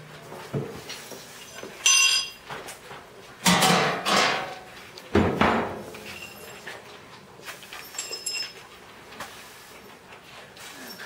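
Push broom worked across a hard lab floor: a series of sharp knocks and clinks, the loudest about two, three and a half and five seconds in, some with a short high ring.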